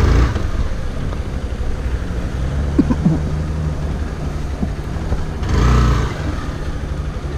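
Hero XPulse single-cylinder motorcycle engine running steadily at low speed and idle as the bike rolls to a stop. A brief louder noisy swell comes about five and a half seconds in.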